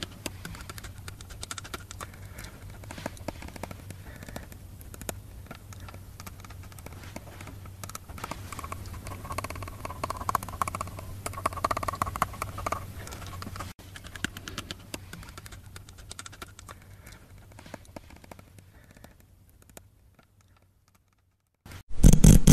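Quiet room ambience of a low hum with scattered small clicks and rustles. It fades almost to silence, then a sudden loud sound breaks in right at the end.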